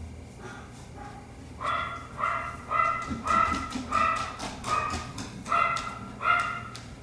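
A dog barking in a quick run of about ten short, high-pitched barks, beginning faintly and growing louder about a second and a half in.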